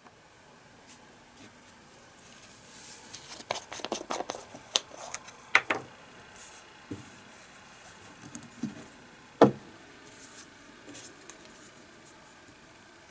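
Scattered clicks, taps and short scraping sounds of small hand-tool work on a wooden lure body, busiest in the first half, with one sharp knock a little past the middle.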